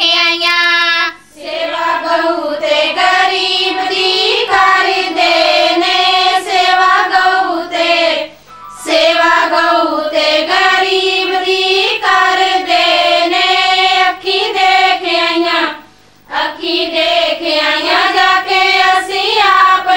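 A high voice singing a Punjabi devotional song in long, held, wavering phrases, with short breaks between phrases about a second in, near the middle and about four-fifths of the way through.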